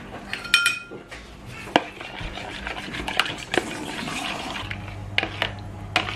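A metal spoon stirs gelatine dissolved in hot water in a plastic tub, giving scattered clinks and knocks against the tub, with one brief ringing clink about half a second in. The liquid is then poured into a metal saucepan of custard.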